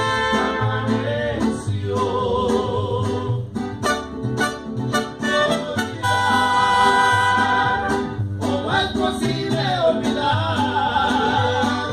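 Mariachi band playing, with a plucked bass line stepping between notes under wavering, vibrato-rich melody lines from voices or violins.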